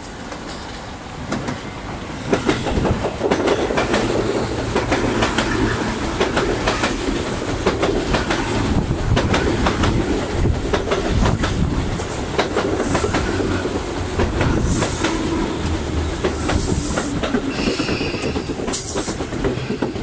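Tobu 10030-series electric train running past close by at speed, its wheels clacking rapidly over the rail joints. Several brief high-pitched wheel squeals come in the second half.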